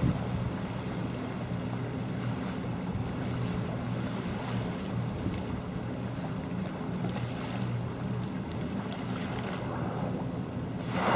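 Steady low hum of a boat's engine under wind buffeting the microphone and the wash of choppy sea. A louder rush of noise rises near the end.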